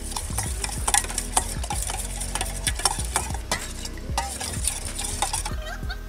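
Metal spoon stirring a sauce in a stainless steel bowl, with irregular clinks and scrapes of the spoon against the bowl.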